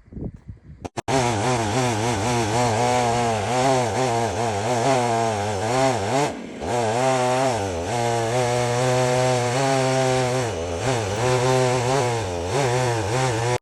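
Stihl chainsaw milling a crotch of Chilean oak, its engine running at high revs under load with a wavering pitch. About six seconds in the engine note sags briefly, then picks back up as the cut continues.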